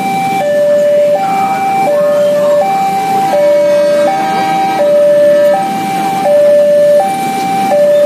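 Railway level-crossing warning alarm sounding a steady two-tone signal, alternating high and low notes each held for under a second: the warning that a train is approaching and the crossing is closed. Motorbike and car engines run beneath it.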